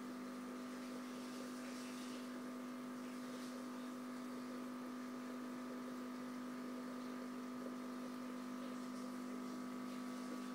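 Steady hum of aquarium equipment, one constant low tone with a fainter higher one above it, unchanging throughout, with a few faint ticks.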